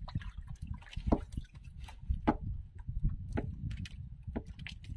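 Water sloshing and lapping against a small boat's hull, with a low irregular rumble and many scattered short clicks and knocks.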